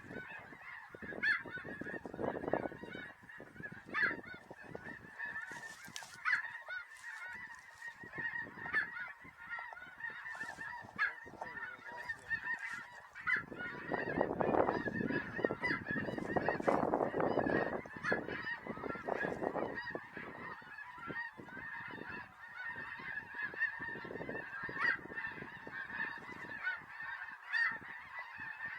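A flock of snow geese calling: a constant chorus of many overlapping high honks, with a low rumble underneath from about 14 to 19 seconds in.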